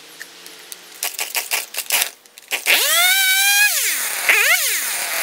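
Stihl MS170 two-stroke chainsaw pull-started with several quick rasping tugs of the starter cord, catching about two and a half seconds in. Its engine speed climbs and then sags away twice, the bog-down of a saw with a fuel-delivery problem.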